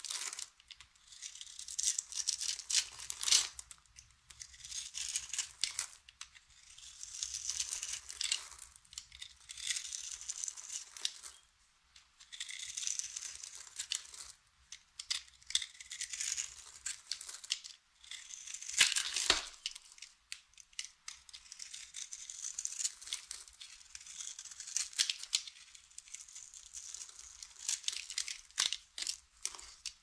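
Utility knife blade cutting and scraping through a bar of dry soap. It gives crisp crunching and crackling as flakes and small pieces break off, in repeated strokes a second or two long with brief pauses between.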